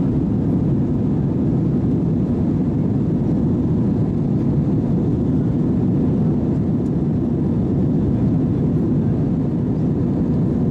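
Steady cabin noise inside an Airbus A320 in flight: the engines and the air rushing past the fuselage make an even, deep drone that does not change.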